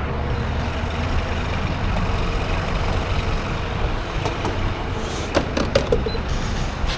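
Steady low rumble of a motor vehicle running, with a few sharp clicks about five seconds in.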